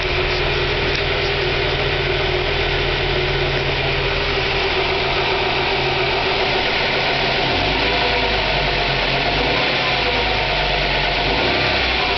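Honda Prelude's H22 four-cylinder engine idling steadily, with a secondary noise that the owner suspects is a bad belt tensioner.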